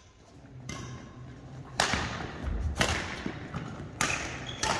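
Badminton rackets striking a shuttlecock in a rally: five sharp cracks about a second apart, each echoing briefly in the sports hall, with a low thud of a footfall on the court about halfway through.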